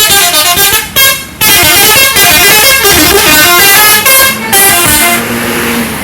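Bus telolet horn, the multi-note musical air horn fitted to Indonesian buses, playing a quick stepping melody in three loud blasts. The middle blast is the longest; the last, short blast ends about five seconds in.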